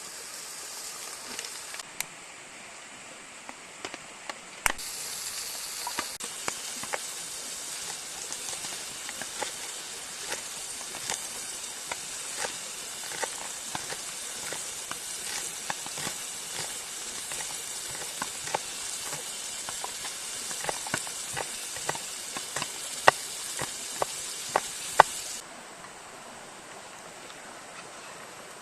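Duck breast frying in a carbon steel pan over a campfire: a steady sizzle with many sharp pops and crackles. The sizzle starts abruptly about five seconds in and cuts off abruptly near the end.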